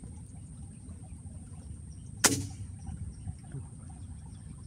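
A single shot from an air rifle firing a 14-grain slug: one sharp crack about two seconds in, with a brief ring after it.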